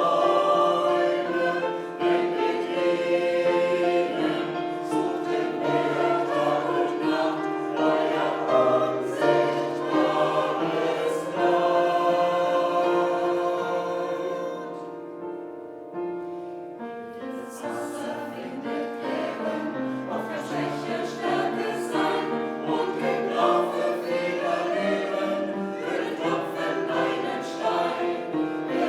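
A choir singing in several parts. About halfway through the voices thin out and grow quieter for a moment, then the full choir comes back in.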